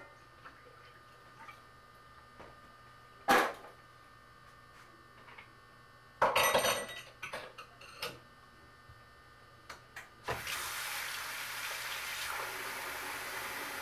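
A few short clinks of dishes, then about ten seconds in a kitchen tap is turned on and water runs steadily into the sink.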